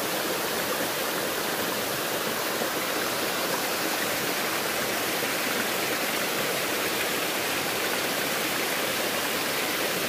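Waterfall spilling down a tall, stepped rock face: a steady, even rush of falling water.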